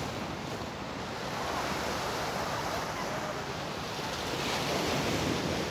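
Sea surf at high tide breaking and washing over a rock revetment. It is a continuous rushing wash that swells about a second and a half in and again near the end as waves break on the stones.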